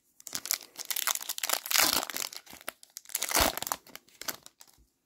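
Foil hockey card pack being torn open and crinkled in the hands: a dense crackling that starts about a third of a second in, is loudest around two seconds in with another surge about three and a half seconds in, and dies away near the end.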